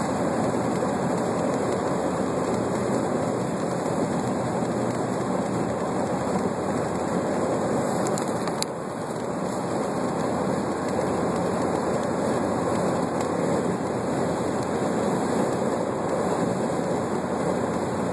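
Steady road and tyre noise heard inside a car cruising at highway speed, with a single brief click about halfway through.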